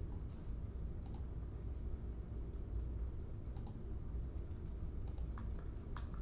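A few scattered light clicks, as of computer keyboard keys tapped now and then, over a low steady hum.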